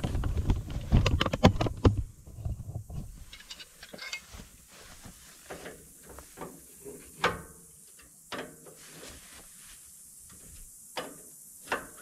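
Knocking and rustling for the first few seconds, then a few separate metallic clicks and clinks as a hand wrench is worked on the fittings of a John Deere 148 loader's hydraulic lift cylinder.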